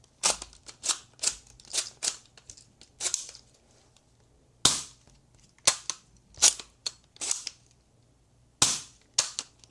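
BB gun firing repeatedly: about fifteen sharp pops in quick, irregular clusters, with two short pauses between the clusters.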